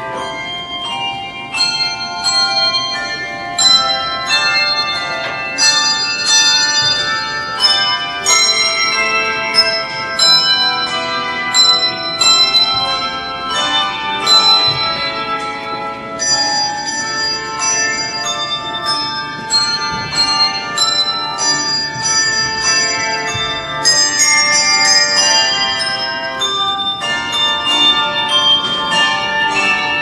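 A handbell choir ringing a tune on tuned handbells. Chords and melody notes are struck every second or so, and each rings on and overlaps the next.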